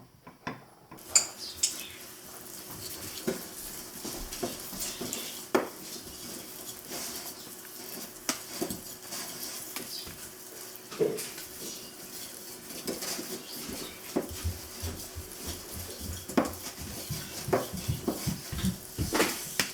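A spoon clinking and scraping against a bowl, mixing butter and icing sugar, in irregular knocks that turn into a quicker run of strokes near the end.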